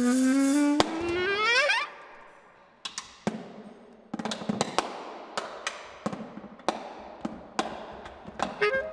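A bass clarinet note slides steadily upward in pitch and breaks off about two seconds in. Then drumsticks strike a snare drum covered with a cloth towel in sparse single strokes, about one or two a second, each ringing briefly. Near the end the bass clarinet comes back in with short notes.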